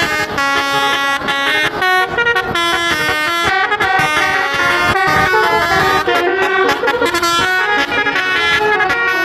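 Indonesian bus telolet horn, an electric multi-trumpet air horn, playing a quick melody of short notes that step up and down in pitch without pause.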